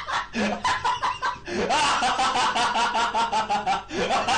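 A meme laughing sound effect: someone laughing hard and high-pitched in quick, rhythmic bursts of about five a second.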